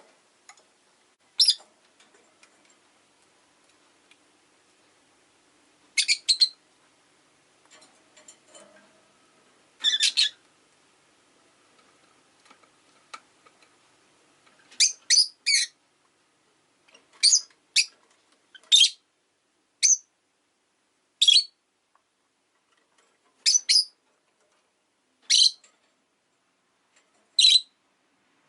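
Rosy-faced lovebird chirping: short, sharp, high-pitched calls, singly or in quick clusters of two or three, coming every second or two and more often in the second half.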